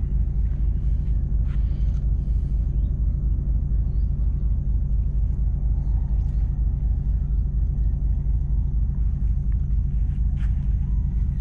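A steady low rumble, with a few faint brief chirps and clicks above it.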